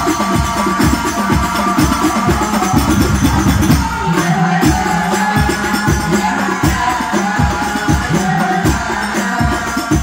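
Hadroh ensemble: male voices singing an Islamic sholawat in unison over hand-struck frame drums and a bass drum beating a steady rhythm. The drums drop out for a moment about halfway through.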